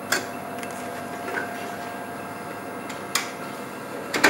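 Sharp plastic clicks of reagent cassettes and a rack being handled on a Cobas Integra 400 plus chemistry analyzer, a few single clicks and two close together near the end, over the analyzer's steady hum.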